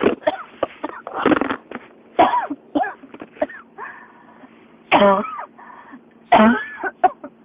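A person in a coughing fit, about ten harsh coughs in quick clusters. The longer coughs about five and six and a half seconds in are voiced and rasping.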